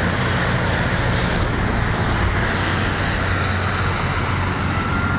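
Steady road traffic noise, with the low, even hum of running vehicle engines under a wash of tyre and traffic noise.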